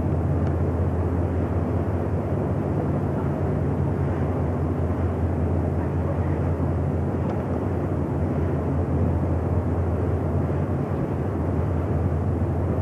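Steady low engine drone of a ferry under way, heard from its open deck, mixed with an even rush of wind and water that does not let up.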